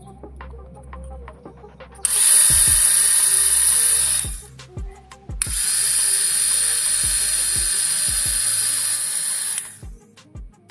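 A small power tool's motor running in two bursts, the first about two seconds long and the second about four, with a high-pitched whine and light clicks in between.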